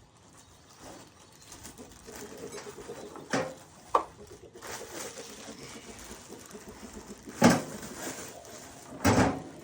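A bird cooing in the background, with a few sharp knocks and thuds, the loudest about seven and a half seconds in and again near the end.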